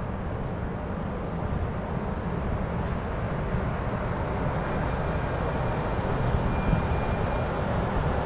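Wind buffeting the microphone: a steady low rumble with no clear pitch, growing slightly louder toward the end.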